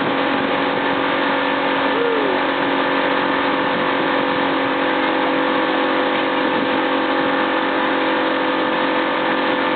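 Motorboat engine running steadily at cruising speed, a constant hum of several steady tones over an even rush of noise.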